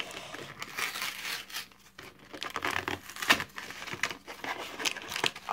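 Torn foil Pokémon booster pack wrapper crinkling and rustling as cards are pulled out and handled, with irregular sharp crackles, the loudest a little past the middle.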